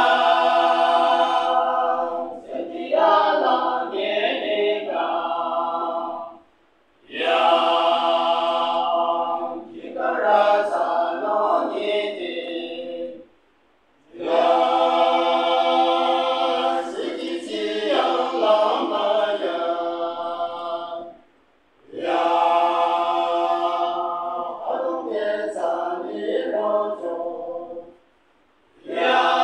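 Male choir singing a cappella, in four phrases of about six seconds each with short breaks between them.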